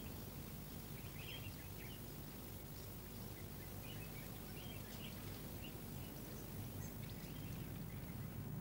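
Faint outdoor ambience: a steady low hum and hiss, with a few faint, short high chirps scattered through it.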